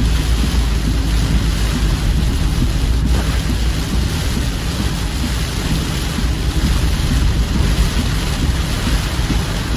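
Heavy rain from a katabui, Okinawa's sudden local downpour, falling as a dense, steady hiss with a strong low rumble underneath.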